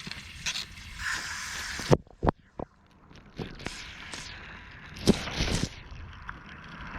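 Running water that stops abruptly about two seconds in, followed by a few sharp knocks and short bursts of scrubbing noise as a pocket knife is washed and wiped with a rag.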